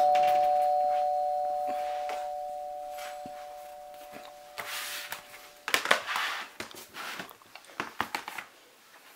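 Two-note ding-dong chime, high note then low note, ringing on and fading away over about five seconds. After it, a few light knocks and rustles as a sketchbook is handled and flipped over.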